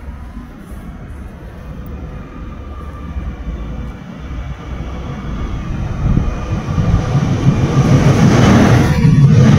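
České dráhy class 844 RegioShark diesel railcar running into the platform and passing close, its rumble growing steadily louder as it nears.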